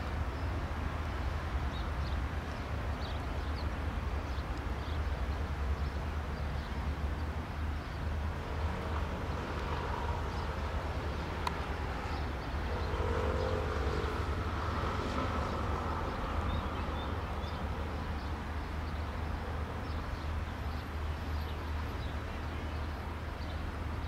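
Piper PA-28-140 Cherokee's four-cylinder Lycoming piston engine running at low taxi power, a steady low drone that carries a faint higher tone in the middle stretch as the aircraft comes closer.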